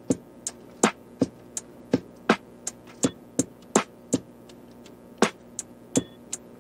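Background music: a programmed drum beat of sharp, clicky hits, about two or three a second, over faint sustained notes.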